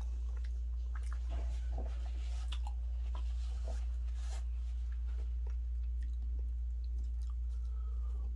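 Close-miked eating of fufu and turkey stew: wet chewing, smacking and mouth clicks, busiest in the first half. A steady low hum runs underneath.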